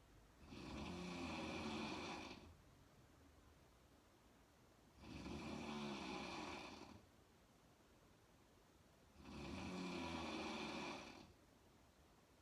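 A woman snoring in her sleep, lying on her back with her mouth open: three snores about four seconds apart, each lasting about two seconds, with quiet gaps between.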